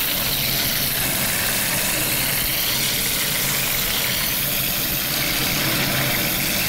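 Whole trout frying in plenty of melted butter in a frying pan, a steady sizzling hiss, with a low steady hum underneath.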